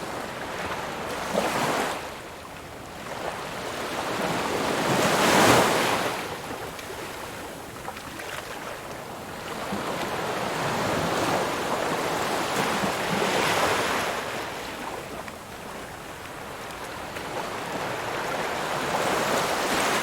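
Ocean waves breaking and washing in, the surf swelling and falling back every few seconds. The loudest wave comes about five seconds in.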